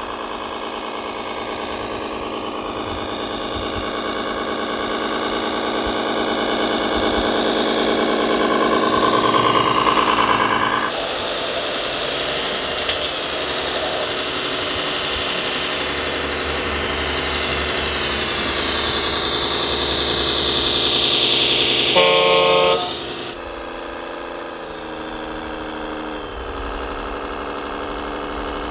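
Scale radio-controlled MAN trucks' engine sound, the note climbing steadily over the first ten seconds, breaking off abruptly at about 11 seconds and climbing again. About 22 seconds in an air horn sounds once for about a second, then a lower, steadier engine note follows.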